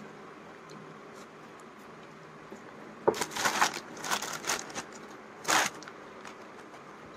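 Plastic takeout bag around a noodle bowl crinkling in several short bursts, after about three seconds of quiet room tone.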